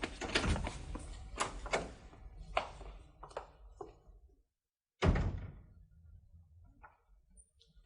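Door and handling knocks: a run of sharp knocks and thuds, then after a short dead gap one loud thunk that dies away, followed by a few faint ticks.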